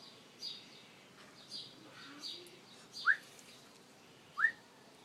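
Birds chirping: short, high, falling chirps repeat about every half second or so, and two louder, short rising whistled calls come about three and four and a half seconds in.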